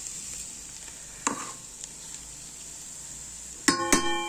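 Egg and cabbage frying in an electric rice cooker's pot with a faint steady sizzle while being stirred. There is a light knock about a second in, then two sharp knocks near the end that ring on with a metallic tone: the spatula striking the pot.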